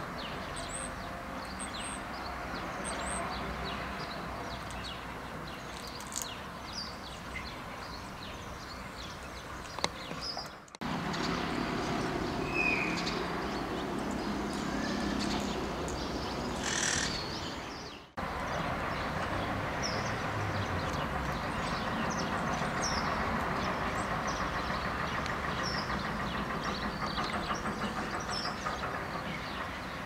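Monk parakeets giving short, high chirping calls over a steady background noise, with one louder call about 17 seconds in. The sound breaks off abruptly twice, about 11 and 18 seconds in.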